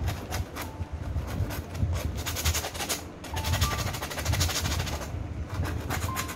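Palette knife scraping and dabbing thick white acrylic paint onto a stretched canvas: a rapid rasping scrape in runs of strokes, with dull low thumps from the canvas, busiest in the middle.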